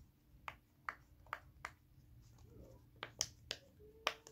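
Silicone pop-it fidget toy with its bubbles pressed one after another, giving about eight sharp little pops at an uneven pace, with a pause midway.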